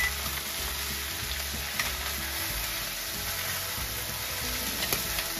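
Potatoes frying in oil in an overfilled pan, sizzling steadily, with a couple of faint clicks.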